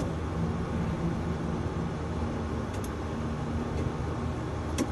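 Steady machine hum and rushing air inside a tower crane cab, with a low drone and a faint click or two; the cab's own add-on air conditioner is blowing.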